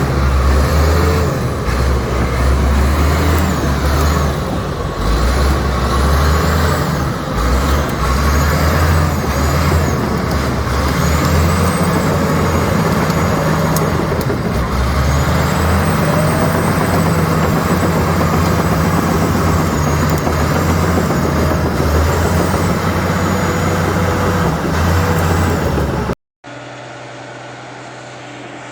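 Komatsu D85ESS bulldozer's diesel engine running loudly and unevenly, with high-pitched squeals wavering above it. Near the end the sound cuts abruptly to a quieter, steadier engine hum.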